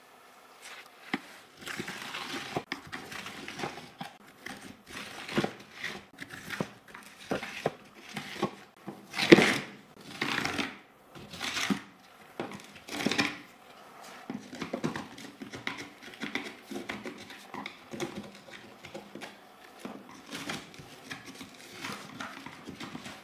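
Plastic parts of a Fuhlen L411 keyboard being handled during cleaning: irregular clicks, taps and short scraping and rustling strokes, the loudest scrape about nine seconds in.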